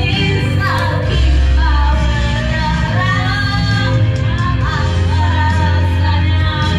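Two women singing loudly along to backing music, one through a handheld microphone, over a deep, steady bass line.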